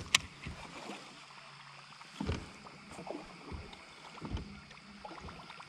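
Sounds from a fishing boat on the water: one sharp click just after the start, then a faint steady hum with light water sounds and a few dull knocks.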